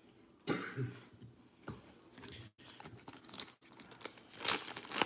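Foil wrapper of a 2019-20 Panini Revolution basketball card pack being torn open by hand. A few soft rustles early on, then a run of crinkles and tears that is loudest about four and a half seconds in.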